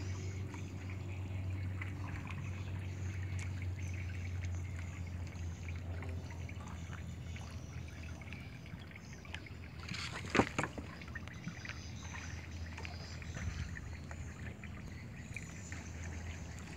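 River water trickling and lapping around a wooden canoe as it is paddled, over a steady low hum. A single sharp knock about ten seconds in.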